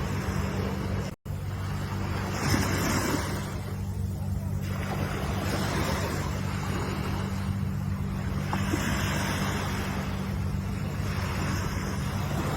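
Ocean surf: waves breaking and washing in, a surge every three to four seconds over a steady low rumble. The sound drops out for an instant about a second in.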